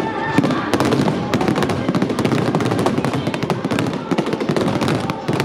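Fireworks display finale: a dense, unbroken barrage of shell bursts and crackling with no pauses.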